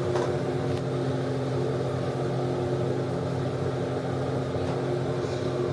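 Steady mechanical hum inside an original Otis elevator car as it travels down.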